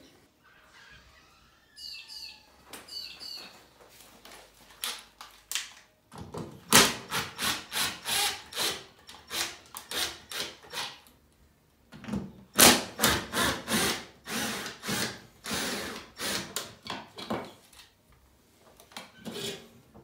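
Hand work removing an old two-gang wall light switch plate: rasping, scraping strokes about three a second in two long runs, with a few faint squeaks a couple of seconds in.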